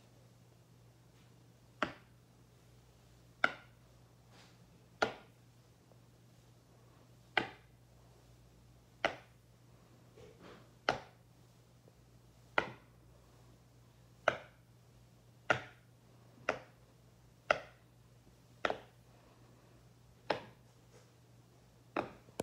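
Silicone pop-it fidget toy's bubbles being pressed one at a time with a finger, each giving a short sharp pop: about fourteen pops, a second or two apart.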